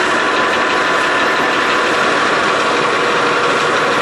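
Metal lathe running steadily, its chuck spinning a steel workpiece, with an even machine hum and faint steady tones.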